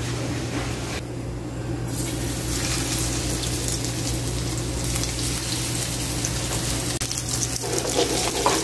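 Spice-coated fish sizzling as it fries in hot oil in a non-stick pan, a steady crackling hiss that starts about two seconds in, over a steady low hum.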